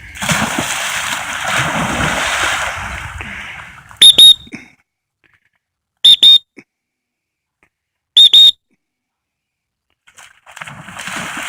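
A dog splashing into the water for about four seconds, then three short, loud blasts on a dog-training whistle about two seconds apart, with splashing starting again near the end.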